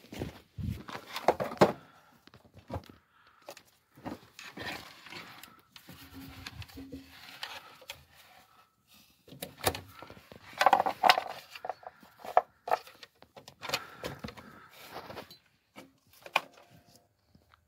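Footsteps crunching in snow, with irregular rustling and clicking as cables and equipment are handled.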